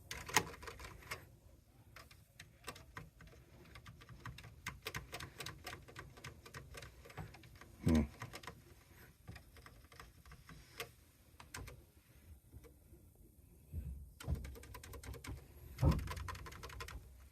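Keys being typed on a TRS-80 Model 4 keyboard: irregular clicking and clacking of individual keystrokes, with a louder thud about eight seconds in and a quicker flurry of keys near the end.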